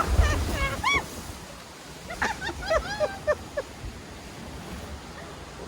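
Water rushing and splashing around a rafting-ride boat just after a drop, with a loud low rumble on the microphone at the start. Short high shrieks and whoops come from riders about a second in and again around the middle.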